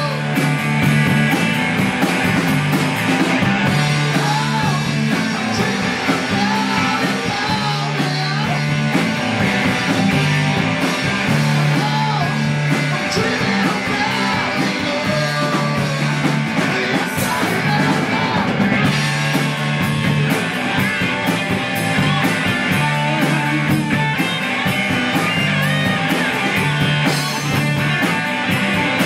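Rock band playing live: distorted electric guitars, bass guitar and a drum kit, with a male singer's vocals.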